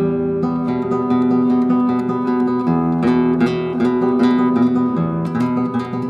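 Acoustic guitar music: a run of plucked notes over ringing chords and held bass notes.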